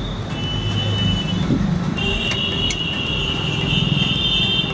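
Steady street traffic noise, with a high-pitched steady tone joining about two seconds in and holding.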